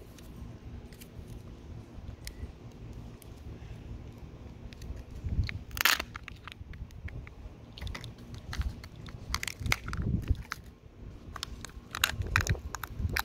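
A Kinder Surprise egg being opened and its plastic capsule and toy parts handled: scattered crunches and clicks, with the sharpest crack about six seconds in.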